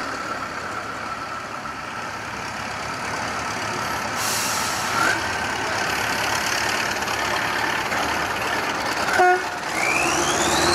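Heavy diesel engines of a K-700 Kirovets tractor and a stuck off-road truck running under load as the tractor takes up the tow chain. About nine seconds in comes a short loud blast, then a rising whine as an engine revs up.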